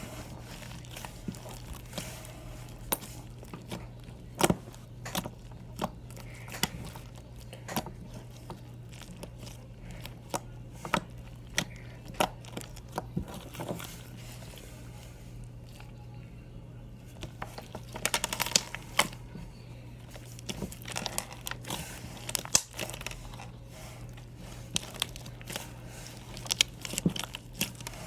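Slime being squeezed and stretched by hand: irregular sticky pops and crackles, coming thickest about two-thirds of the way through, over a steady low hum.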